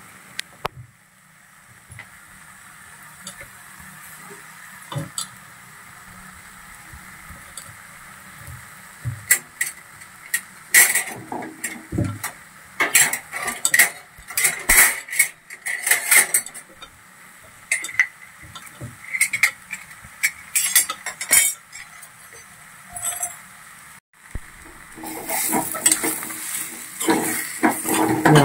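Steel spoon clinking and scraping against an iron kadai as thick rice-flour dough is stirred over the heat, in irregular bursts from about nine seconds in. The dough is sticking to the pan. Near the end the stirring turns steady, with a light sizzle.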